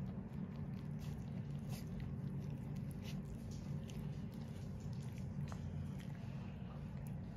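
A cat licking a puppy's fur and ear close up: scattered wet licking clicks over a steady low rumble.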